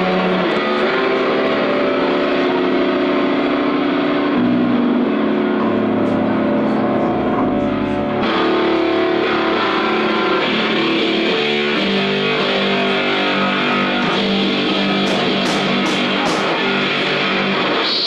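A band playing loud music live, with guitar to the fore and a steady, unbroken level.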